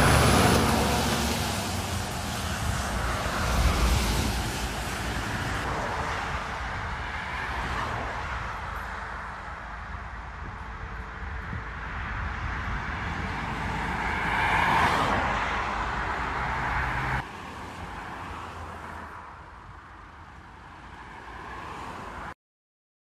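Motorway traffic going by on a wet road, a steady rush of tyres on wet asphalt, with louder swells as vehicles pass close near the start, about four seconds in and about fifteen seconds in. The sound drops suddenly about seventeen seconds in and cuts off shortly before the end.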